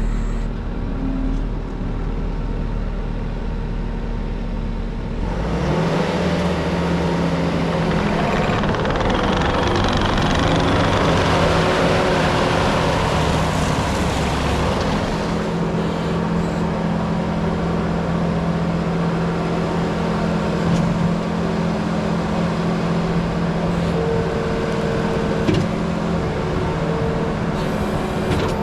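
New Holland C345 tracked skid steer's diesel engine running, rising to a higher, louder run about five seconds in and then holding steady.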